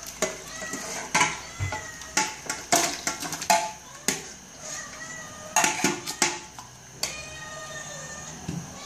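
Clattering of a stainless steel pot and its contents being handled, a quick run of sharp knocks and clinks that dies down after about six seconds.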